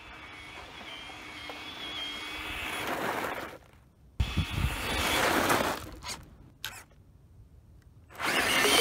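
Traxxas TRX-4 RC crawler's electric motor whining and its tyres crunching over gravel as it drives up, growing louder as it nears. The sound dips briefly about four seconds in, comes back as a second run of driving noise, then fades to near quiet with a few small clicks as the truck stops, before a loud burst of noise near the end.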